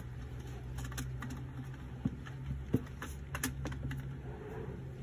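Hands opening a small cardboard product box: a handful of light taps and clicks of cardboard, the sharpest about two and three seconds in, over a steady low hum.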